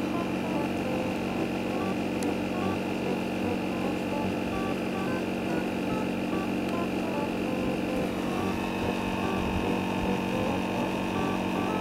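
Light, comical background music with a simple electronic-sounding melody of short held notes over steady lower tones.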